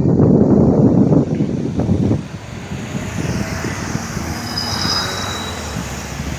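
Road traffic driving over the railroad crossing as it moves again after the gates lift. A loud rumble of passing vehicles lasts about two seconds, then settles into a steadier, quieter traffic rumble.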